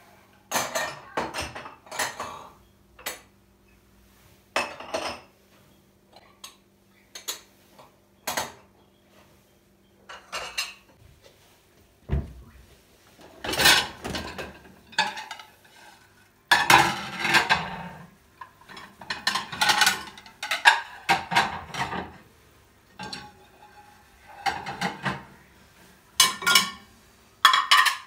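Glasses and ceramic plates knocking and clinking against each other and the stone counter as a dishwasher is unloaded and the dishes are put away: an irregular series of short sharp clinks, some in quick clusters.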